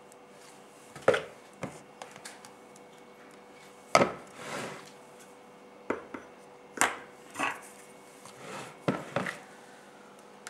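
A spoon tapping and scraping against idli plates as batter is spooned into their compartments: a handful of sharp clinks at irregular intervals, with softer scraping between them.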